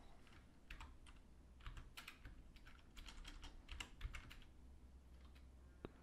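Faint tapping of computer keyboard keys: an irregular run of clicks through the middle, then one more tap near the end.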